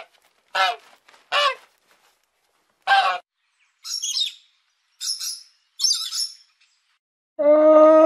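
Domestic geese honking, four short honks over the first three seconds. Then a sun conure gives three harsh screeches. Near the end a longer, lower bleat-like call begins.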